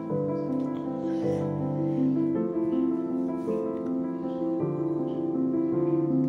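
Background music: a soft piano or keyboard tune with slow, held notes.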